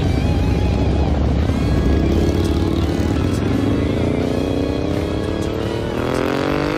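Harley-Davidson V-twin motorcycles rumbling as riders pull away, one engine revving up in a steadily rising pitch from about four seconds in, cutting off sharply near the end; background music plays underneath.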